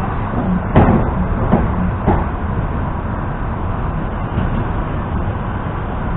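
Steady running noise heard from inside a moving ЭП2Д electric multiple-unit train, with three sharp knocks about a second in, at a second and a half, and at two seconds.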